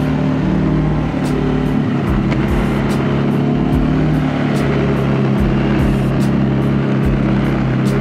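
CFMOTO CFORCE 600 ATV's single-cylinder four-stroke engine running steadily at an even, moderate speed while riding, with a few light knocks.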